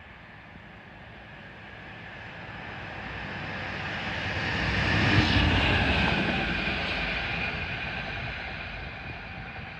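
A Class 66 diesel locomotive passes beneath, its engine and a high whine growing louder as it approaches, loudest about five seconds in, then fading as it pulls away, the whine falling slightly in pitch.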